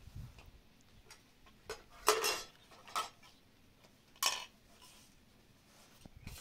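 Knives and dishes clinking as tomatoes are cut over plates: about four sharp, ringing clinks, the loudest about two seconds in and another a little after four seconds.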